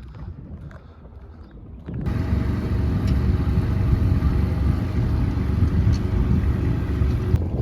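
Boat engine running at a steady speed, coming in suddenly about two seconds in and holding loud and even, over a low rumble of wind and water.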